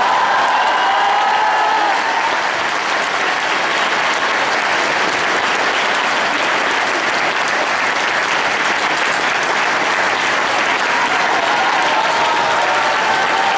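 Large audience applauding steadily, with a few voices calling out over it near the start and the end.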